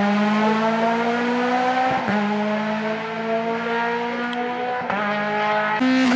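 Rally car engine pulling hard through the gears as the car drives away, its pitch climbing steadily with upshifts about two seconds in and again near five seconds.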